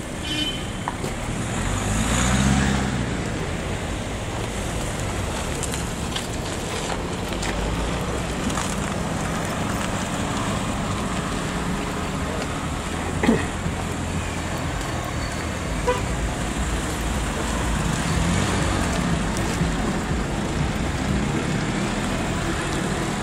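Road traffic: steady motor-vehicle noise, with one vehicle louder and passing close about two to three seconds in, and a single sharp knock around thirteen seconds in.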